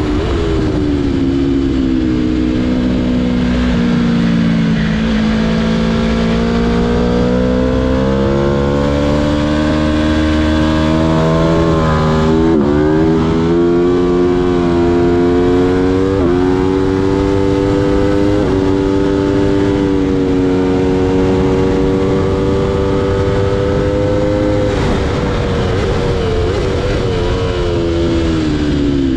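Aprilia Tuono V4 1100 Factory's 65-degree V4 engine at full track pace, heard from on board. Its pitch sinks in the first seconds, then climbs steadily. Around the middle it dips sharply and briefly three times at upshifts, then holds high and falls away near the end as the bike slows for a corner. A steady rush of wind runs under the engine throughout.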